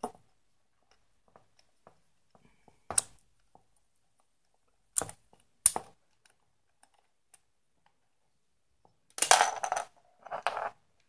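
Small metal parts, a screw and a spacer, clicking and knocking against a tabletop as they are handled: a few single sharp clicks, then two short clattering rattles near the end.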